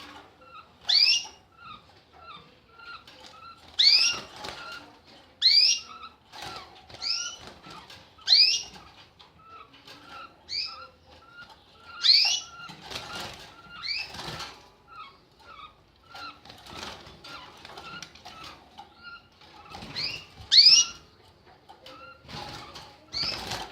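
An animal breathing noisily, with a strange sound on each breath: faint short clicks or wheezes about two to three times a second, broken every second or few seconds by loud, high squeaks that rise in pitch.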